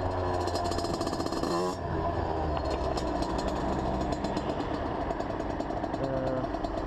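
Derbi DRD 50cc two-stroke engine with a Malossi MHR replica exhaust, running under light throttle at low road speed. The revs drop briefly just before two seconds in, then pick up again.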